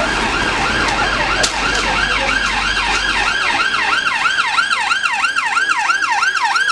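Police car siren in the fast yelp mode: a rapidly repeating rising-and-falling wail, about four sweeps a second. A low rumble runs under it for the first half.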